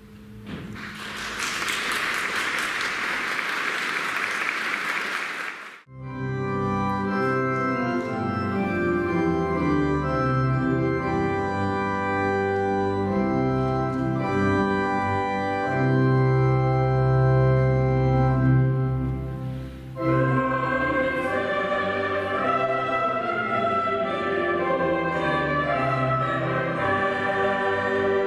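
Applause for about six seconds. It stops abruptly, and a church organ begins sustained chords. From about twenty seconds in, a mixed choir sings with the organ.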